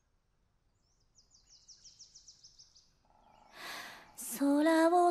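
Faint, rapid high chirping, about six a second, then a soft swell of noise, and about four seconds in a woman's voice begins singing a slow melody with long held notes, much louder than the chirping.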